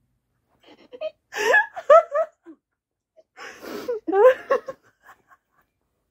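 A woman laughing in two bouts, one about a second in and another just past the halfway point, breathy and wavering in pitch.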